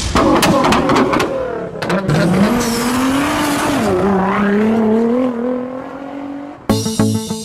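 Sound effect of a racing car engine revving: its pitch climbs, dips about four seconds in, then holds steady, after a few sharp clicks at the start. Music with plucked strings begins near the end.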